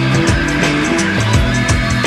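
Loud background rock music with a fast, steady drum beat and a bass line.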